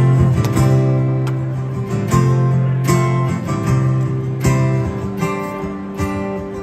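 Live band playing a slow song intro: acoustic guitar strumming chords in a steady rhythm over sustained bass and electric guitar, with no singing yet.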